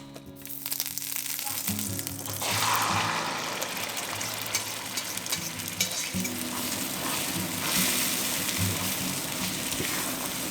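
Beaten eggs with a little milk sizzling as they fry in a hot pan of fat, the sizzle starting suddenly about two and a half seconds in and then holding steady.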